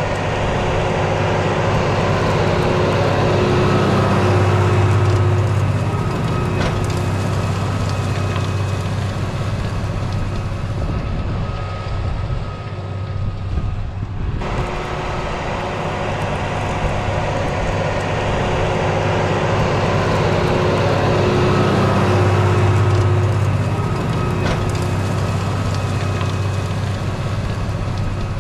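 Deutz Fahr 6175 TTV tractor's six-cylinder diesel engine running steadily under load while pulling a chisel plow through the soil. It grows louder twice, about five seconds in and again past twenty seconds, with a brief dip and an abrupt break about halfway through.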